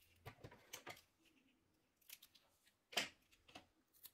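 Faint rustles and small clicks from a strip of double-sided tape being handled between the fingers, with one sharper click about three seconds in.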